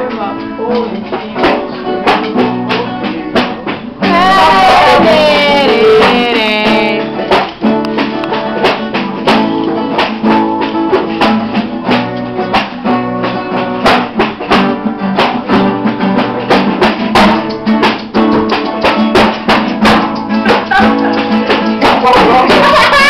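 Upbeat song with plucked guitar, a steady percussive beat and a singing voice; the voice is most prominent a few seconds in and again near the end.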